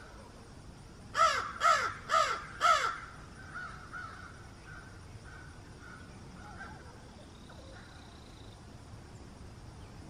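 A crow cawing four times in quick succession, about half a second apart. Fainter calls follow for a few seconds.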